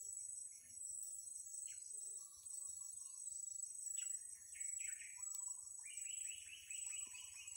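Insects trilling steadily at a high pitch, with a bird giving short calls that speed up into a quick, even run of chirps near the end.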